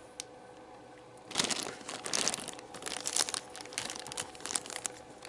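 Model kit packaging being handled, crinkling and rustling from about a second and a half in, with a small click near the start.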